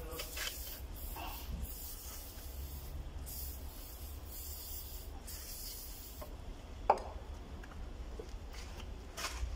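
Hands rubbing and wiping a small car part, in scratchy stretches of about a second each. A single sharp click comes about seven seconds in.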